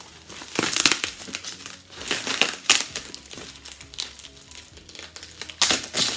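Plastic gift wrapping crinkling in irregular bursts as it is torn and pulled open by hand.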